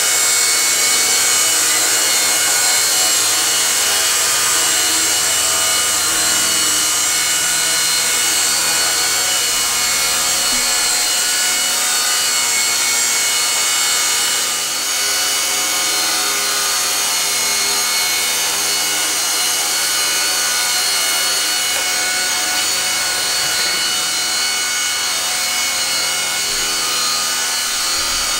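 Several micro RC helicopters hovering at once make a steady, dense, high-pitched whine from their small electric motors and rotors. The level dips slightly about halfway through, when one of them lands.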